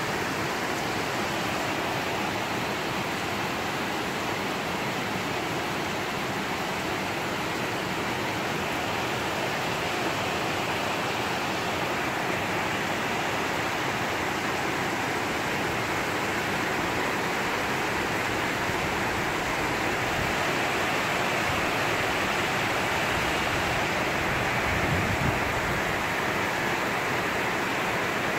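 Heavy downpour: a steady hiss of rain pouring down, growing slightly heavier in the second half.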